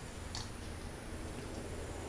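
Low steady hum with one faint short click about half a second in.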